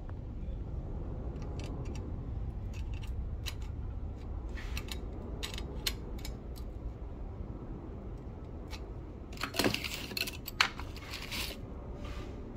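Metal hand tools clinking and clattering, loudest about ten seconds in, with scattered small clicks before that, over a steady low hum.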